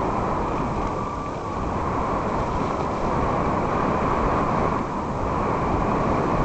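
Steady rushing noise of a bicycle being ridden along a trail: wind buffeting the microphone and tyres rolling over the ground.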